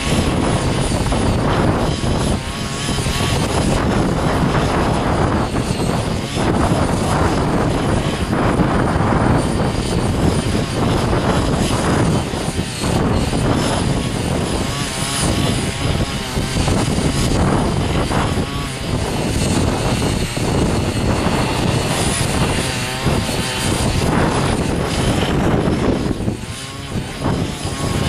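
Ching Yee CY50 mini foldable cultivator running continuously under load, its small engine driving the rotary tilling blades deep into the soil. The level wavers as the load changes.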